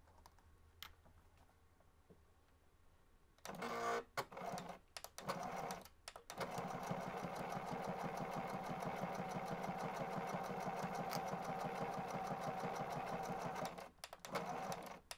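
Domestic sewing machine stitching a seam closed near the fabric edge: a few short start-stop bursts about three and a half seconds in, then an even, steady run of stitching, stopping and giving a couple more short bursts near the end.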